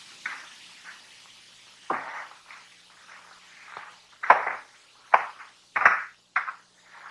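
Steaming ground bubbling and plopping: a faint hiss with separate sudden plops, one about two seconds in and several close together in the second half.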